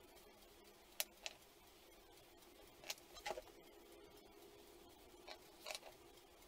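Light, sharp clicks of oil pastel sticks being picked up and set down on the table, in three close pairs about two seconds apart, over a faint steady hum.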